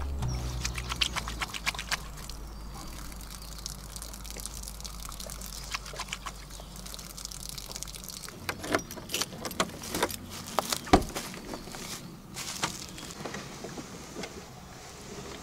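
Water running from the tap of a water container mounted on the back of a Land Rover Defender, with hands working at it; from about eight seconds in come scattered clicks and knocks, the sharpest near the eleven-second mark.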